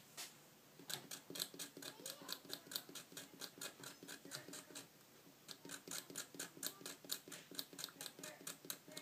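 Aven Tools precision hobby knife blade scraping solder mask off a printed circuit board in short, quick strokes, about five a second, with a brief pause about halfway through.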